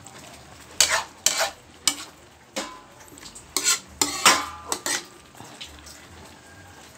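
A metal spoon stirring a coconut-milk stew of bamboo shoots in a metal wok, scraping and clanking against the pan. There is a cluster of clanks about a second in and a louder run of them around four seconds in, some with a brief metallic ring.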